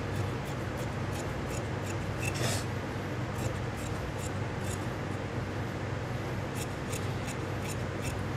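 Large tailor's shears cutting through suit-trouser cloth on a table: a run of irregular snips and blade clicks as the cut moves along the leg, over a steady low hum.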